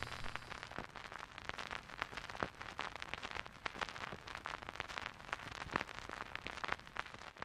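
Heavy vinyl-record crackle: dense, irregular clicks and pops over a hiss, an added old-record static effect.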